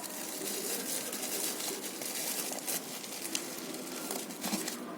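Faint handling noise of merch and packaging: light rustling with a few small clicks and taps.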